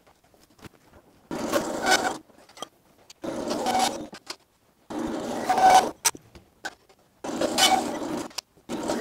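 Hand file deburring the edge of a freshly sawn steel piece: four slow scraping strokes, each about a second long, with short pauses between, and a fifth starting at the end.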